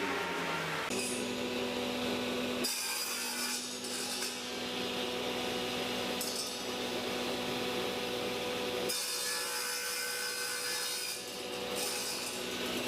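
Wood thicknesser (thickness planer) running, its cutter head planing wood with a steady motor hum; the cutting noise changes about a second in, near three seconds and near nine seconds as the work through the machine changes.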